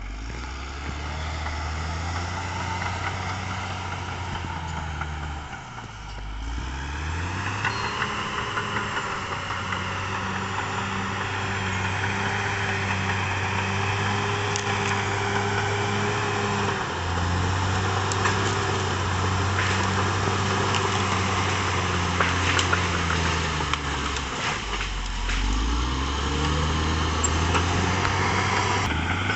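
Caterpillar D6R XL bulldozer's diesel engine running, its pitch sagging and climbing back up about five seconds in and again near the end, with scattered sharp clatter over it.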